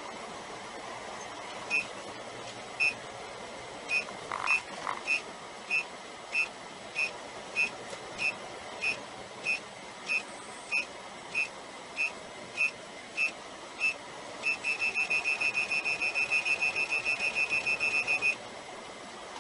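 A semi-truck's in-cab collision-warning alarm beeping, sounding as the truck closes on the slowing truck ahead. A single high-pitched beep repeats about every 0.6 s, then turns into a rapid string of beeps for about four seconds near the end, over steady cab road noise.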